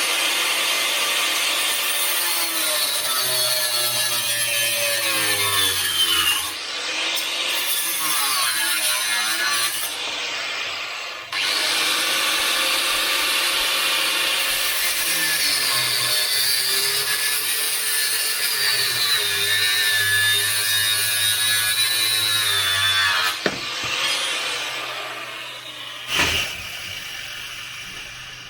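A power tool cutting steel frame stock to length, in two long cuts with a brief break between them; its pitch wavers as the cut loads the motor. It stops about three-quarters of the way through and runs down, and a single sharp knock follows near the end.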